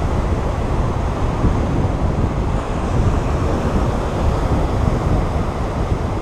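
Wind buffeting the microphone over the steady wash of surf breaking below.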